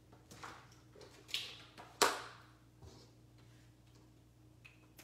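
Handling noises from paper crafting supplies being moved about on a desk: a few short brushing swishes and a sharp knock about two seconds in, the loudest sound.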